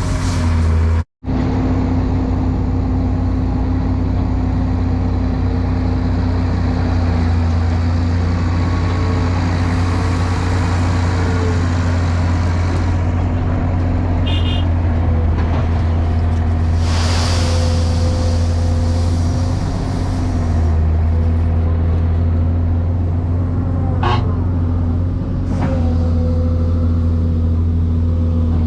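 Excavator's diesel engine running steadily under load, its pitch dipping briefly a few times as the hydraulics work, with a short hiss near the middle and a couple of clanks near the end.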